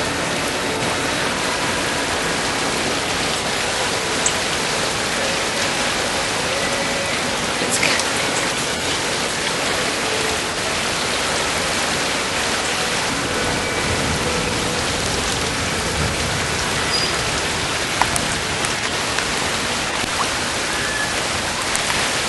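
Heavy rain pouring down steadily, with a few faint scattered drip clicks.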